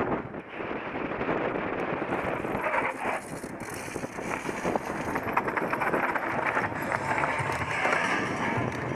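Mountain bike riding over a rough trail: a steady rush of tyre and wind noise on the microphone with many small rattles and clicks from the bike, thicker from about three seconds in.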